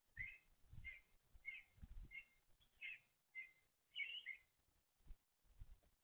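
A small songbird chirping faintly: about eight short, quick chirps in a row that stop about four and a half seconds in, with a few soft low knocks mixed in.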